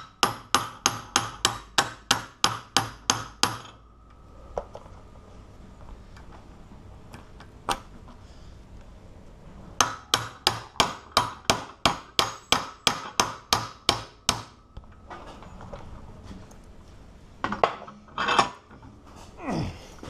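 Hammer blows on the hardened-steel ABUS 83/80 padlock, trying to drive out a part that is stuck fast. Two quick runs of more than a dozen sharp metal strikes, about four a second, the first right at the start and the second about ten seconds in, with a single blow between them and a faint ringing after each run.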